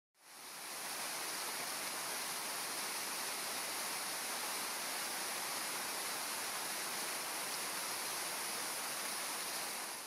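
Rushing water of a mountain-stream waterfall: a steady, even hiss, fading in at the start.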